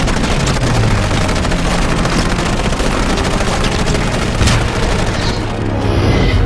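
Rapid machine-gun fire from World War II fighter planes over the steady drone of their piston engines, with a sharp crack about four and a half seconds in. This is a film battle sound mix.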